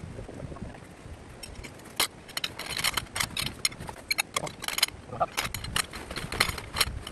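A bundle of metal tent poles clanking and clinking against each other as they are handled and pushed into a canvas bag, a dense run of sharp metallic knocks starting about two seconds in.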